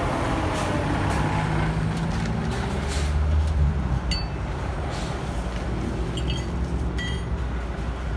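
Steady low rumble of heavy vehicle engines and traffic, swelling briefly about three seconds in, with a few short ringing metallic clinks in the second half.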